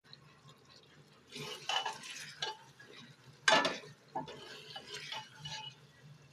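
A metal spoon stirring and scraping in a cooking pot, in irregular strokes, with one sharp clink against the pot about three and a half seconds in.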